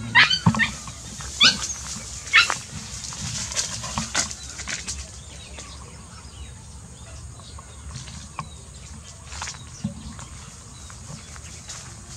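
Dogs yelping, a few short high-pitched yelps in the first two and a half seconds, followed by quieter rustling and small clicks.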